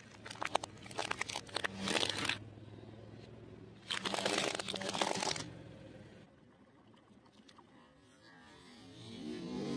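Car tyre rolling over hollow plastic toy crocodiles: the plastic cracks and crunches in a quick run of sharp cracks, then a second longer crunch about four seconds in.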